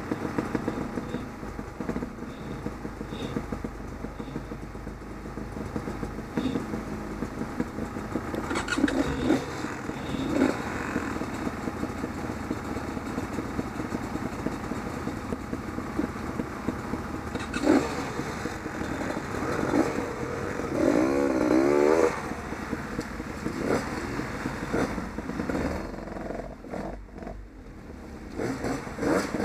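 Off-road motorcycle engines running and revving, with a louder spell of quick up-and-down revs about two-thirds of the way through.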